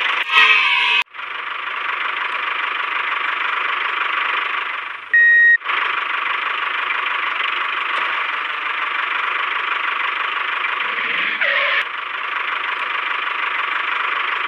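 Battery-powered toy tractor running, a steady buzzing engine-like noise. About five seconds in it is broken by a short, louder steady tone.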